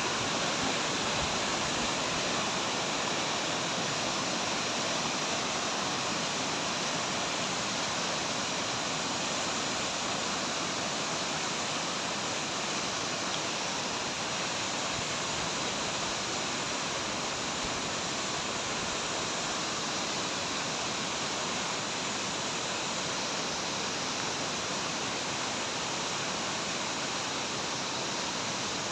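A mountain waterfall rushing in a steady, even roar of falling water.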